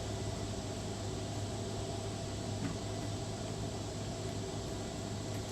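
Steady, unbroken chorus of cicadas, an even buzzing hiss, with a constant low hum underneath.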